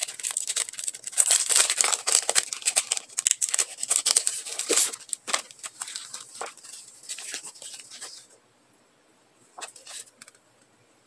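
Clear plastic packaging and transparent PET sticker sheets crinkling and crackling as they are handled. The crackle is dense for about the first five seconds, thins out, and stops about eight seconds in, with one short burst of rustling near the end.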